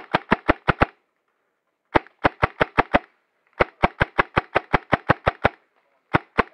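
Airsoft gun shots close by, sharp cracks at about six a second in strings separated by short pauses: one string ends within the first second, another runs around the middle, a longer one follows, and a new string begins near the end.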